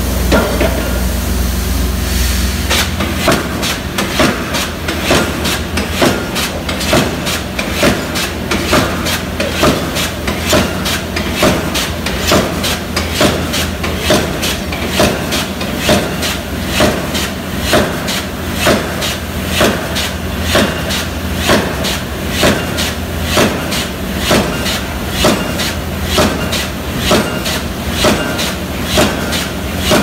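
Vulcan No. 1 air-powered pile hammer driving a timber pile: a steady rhythm of sharp, evenly spaced blows that starts a couple of seconds in, over a low engine drone.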